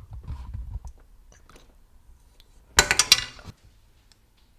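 Kitchen handling noises: a low rumble of handling in the first second, then a quick run of sharp clicks and clinks, utensils against a bowl, about three seconds in.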